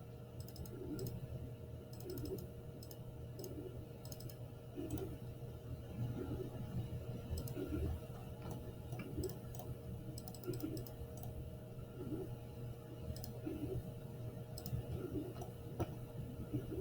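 Computer mouse clicking now and then, in small clusters, over a steady low hum.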